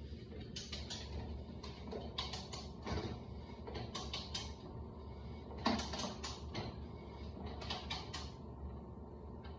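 Manual ratchet pipe threader cutting threads into black steel pipe: the handle is pumped in strokes, each stroke a short cluster of ratchet clicks and scraping from the die, repeating roughly every one and a half to two seconds over a low steady hum.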